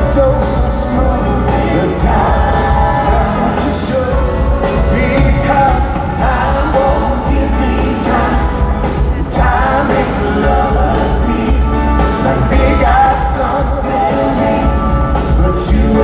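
Live pop band playing, with singing over drums and bass.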